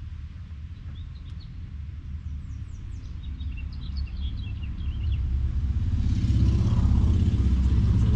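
Small birds chirping in short bursts, then a low motor-vehicle engine rumble that grows much louder from about five seconds in and stays loud.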